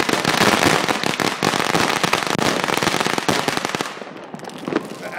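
Firework burning on the ground with dense, rapid crackling and popping, which dies down about four seconds in.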